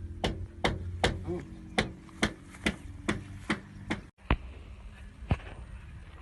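A hammer striking repeatedly in sharp blows, about two to three a second, with a pause after the first three and a last blow near the end. A steady low hum runs underneath.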